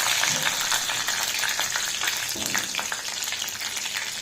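Curry leaves sizzling in hot oil and ghee with mustard and cumin seeds for an upma tempering, with a steady hiss and many sharp crackles and pops. It is loudest at the start and eases a little.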